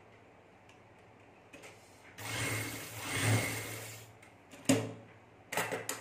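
Juki industrial sewing machine stitching in one run of about two seconds over a low motor hum, sewing a seam alongside a cord inside a fabric strip. A sharp click follows, then a few shorter clicks near the end.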